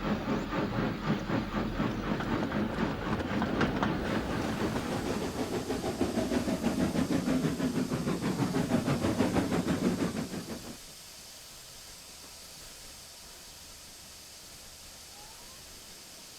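Steam locomotive running, a rapid, even rhythm of chuffs and rattles that cuts off suddenly about ten and a half seconds in, leaving a faint steady hiss.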